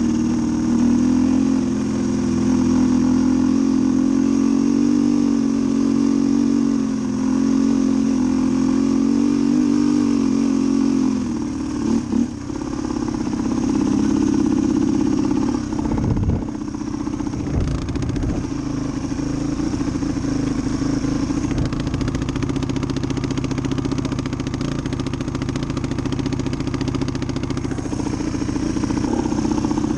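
1990 Suzuki DR250's single-cylinder four-stroke engine running as the motorcycle is ridden, its note wavering up and down with the throttle. The engine sound dips briefly twice, about twelve and sixteen seconds in, then runs steady.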